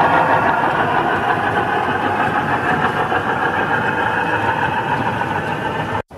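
O scale model freight train running past, a steady mechanical running noise of wagon wheels on the track that eases slightly and cuts off suddenly near the end.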